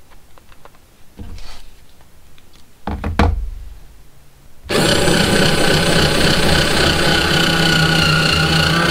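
Cheap cordless electric screwdriver (the Alibaba model) driving a 1¼-inch screw into drywall: a few knocks and clicks, then about halfway through the motor starts and runs with a steady whine.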